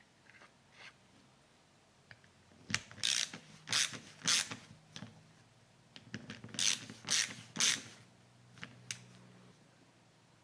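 A hand ratchet worked in two runs of quick strokes, four or five clicking strokes about half a second apart, then a pause and four more, as fasteners are turned during a motorcycle brake caliper rebuild.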